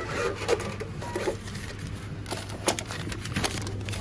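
Steady low electrical hum with scattered clicks and knocks of things being handled at a shop checkout.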